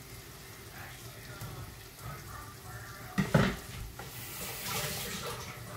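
Kitchen prep of a boiled egg for salad: a knife slicing the egg, a sharp knock about three seconds in, and a steady sizzle-like hiss underneath.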